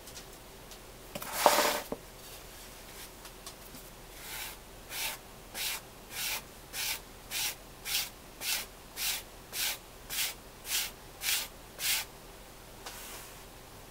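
Soft clay slab being rubbed smooth over a mould with a round hand tool: about fourteen even swishing strokes, a little under two a second, growing louder. About a second and a half in, a short louder handling noise comes first.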